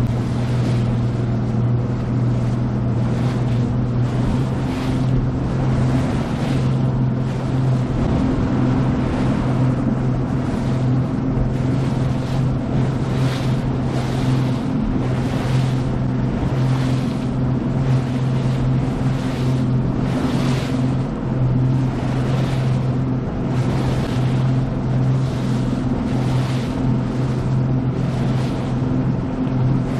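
Outboard engine of a Nitro Z20 bass boat running at a steady pitch under way. Water rushes and hisses off the hull in swells about once a second as the boat runs through chop.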